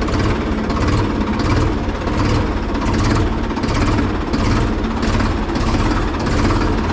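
Ford 3600 tractor's three-cylinder diesel engine running steadily with a regular throb and diesel clatter while the tractor is driven slowly.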